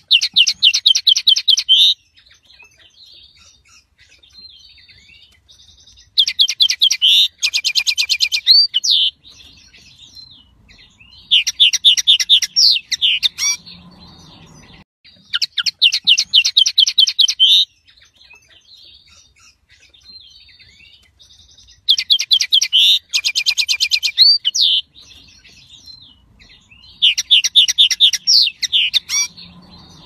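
Common linnet singing: six phrases of fast, repeated trilled notes, each about two to three seconds long, with pauses of a few seconds between them.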